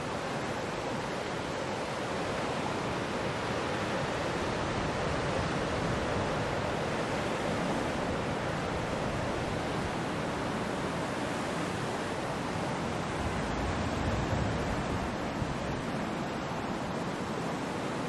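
Ocean surf: a steady wash of waves breaking and rushing in, with a deeper, louder surge a little past two-thirds of the way through.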